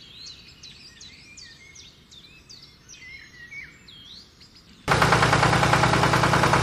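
Birds chirping faintly, then about five seconds in a loud, fast, rattling buzz starts suddenly and runs steadily: the small DC motor of a homemade plastic-bottle toy tractor switched on and running.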